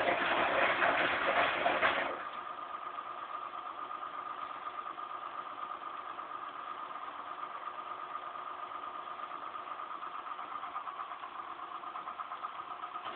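Zanussi Z 630 washing machine running through its rinse. A loud rushing noise cuts off abruptly about two seconds in, leaving a quieter steady hum with a thin whine.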